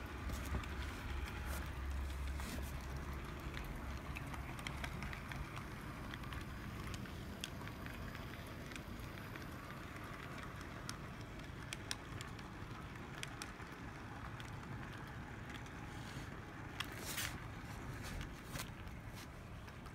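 HO scale model train, a brass 2-10-2 steam locomotive with freight cars, running past close by on the track: a steady low hum of the running gear with scattered sharp clicks from the wheels on the rails.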